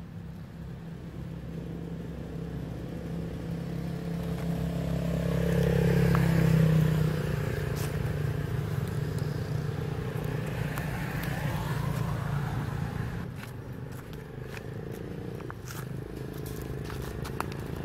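A motor vehicle's engine running steadily, swelling to its loudest about six seconds in and then easing back. Scattered faint clicks and crackles in the second half.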